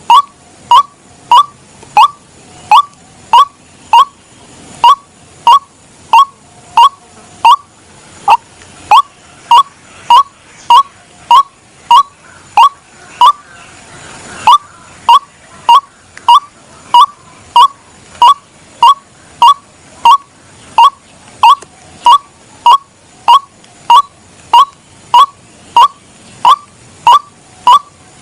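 White-breasted waterhen's (ruak-ruak) mating call played as a lure: a long, monotonous series of short, identical notes, about one and a half a second, repeated evenly.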